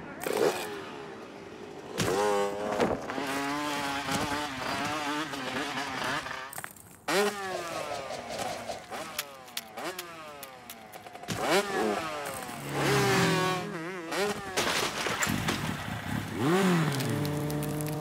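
Cartoon sound effects: wordless, swooping squawks and yelps from an animated ostrich, mixed with slapstick knocks and clatters, and a steady drone near the end.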